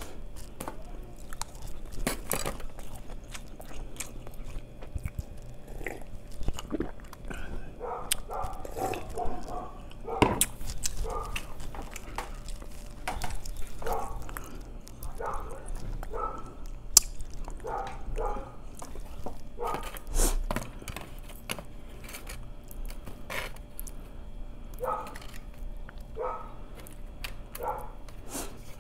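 Close-miked chewing and mouth sounds of a man eating sushi rolls. There are wet smacks and many short, irregular clicks, along with occasional taps of wooden chopsticks against foam takeout trays.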